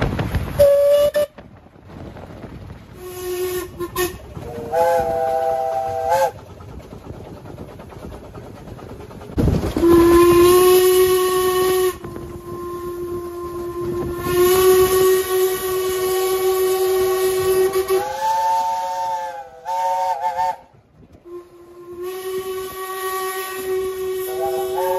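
Steam locomotive whistles sounding in a series of blasts, some short and one held for about eight seconds. Several are chime whistles playing chords of several notes, with steam hissing underneath.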